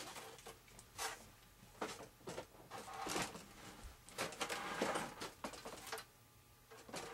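Irregular rustling and scraping as items are shifted and handled on a workbench: several short scuffs, with a busier stretch in the middle.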